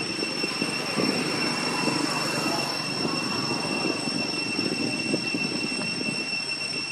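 Steady outdoor background noise: a low, even rumble with a constant high-pitched whine held on a few steady pitches over it.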